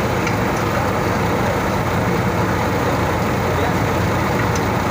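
Steady, loud machinery drone, with faint small metallic clicks near the start and near the end.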